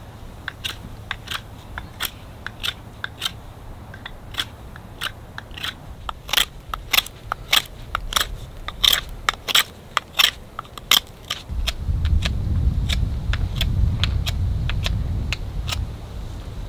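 Irregular sharp crackling pops and clicks, about two a second, busiest in the middle. From about twelve seconds in, a low rumble of wind buffeting the microphone joins them.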